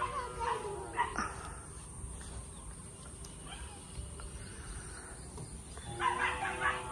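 A dog whining faintly in short, wavering cries: once about the first second and again around six seconds in.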